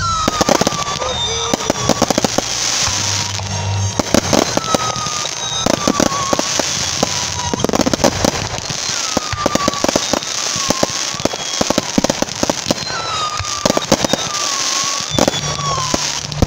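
Aerial fireworks display: shells bursting in rapid volleys of sharp bangs and crackles, growing denser as a barrage builds.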